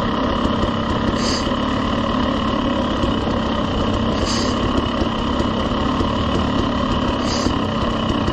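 KTM 300 two-stroke enduro dirt bike engine running at a low, steady speed, its note unchanging, as the bike rolls slowly downhill.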